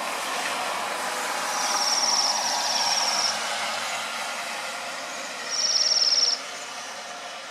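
A small songbird singing high, rapid trills: a longer one about one and a half seconds in and a shorter, louder one near the end, over a steady noisy background.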